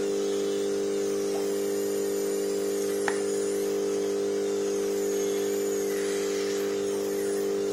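A steady electric hum at an unchanging pitch and level, with one faint click about three seconds in.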